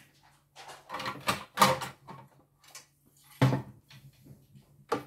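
Plastic cover panels of a CNY E900 embroidery machine being handled on a wooden workbench: a run of knocks, scrapes and clatters, the loudest about one and a half seconds and three and a half seconds in.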